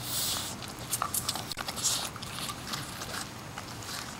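French bulldog biting and chewing an apple core held in a hand: irregular crunches and clicks of teeth on apple, with a longer hissy burst at the start.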